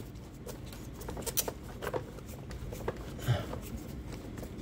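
Scattered light clicks and scrapes of a plastic radio case being handled, about half a dozen small taps in all.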